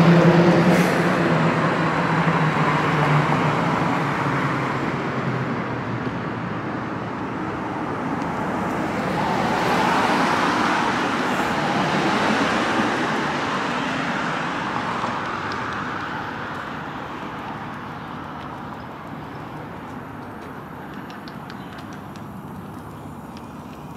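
A city bus drives off, its engine hum fading over the first few seconds. A second vehicle swells past about ten seconds in, and the street traffic noise then dies away gradually.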